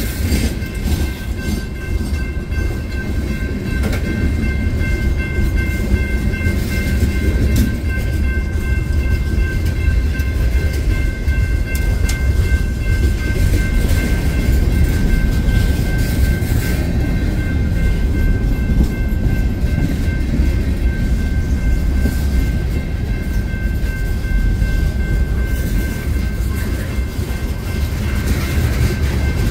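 Freight train cars, open and covered hoppers, rolling past close by: a steady loud rumble of steel wheels on rail with scattered clicks. A thin, steady high-pitched whine runs through most of it and fades near the end.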